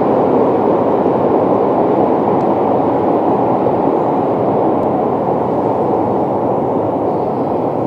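Steady low rumbling noise echoing through an underground railway station, with no distinct clicks or tones, easing off slightly toward the end.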